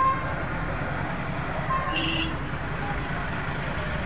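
Outdoor street ambience of a gathered crowd: a steady low engine rumble under faint voices, with a short high toot about two seconds in.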